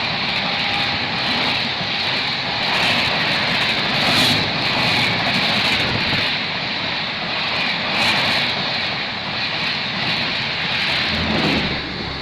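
Express passenger train passing at high speed: a steady rush of wheels on rail and air, with short clacks every second or so as wheels cross rail joints.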